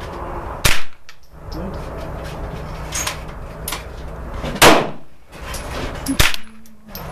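Gunshots on a shooting range: three loud, sharp shots at uneven intervals, about a second in, near five seconds and just after six seconds, with fainter shots between.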